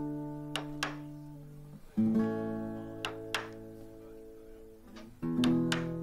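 Acoustic guitar music: a chord strummed about two seconds in and another about five seconds in, each left to ring and fade, with pairs of light sharp taps in between.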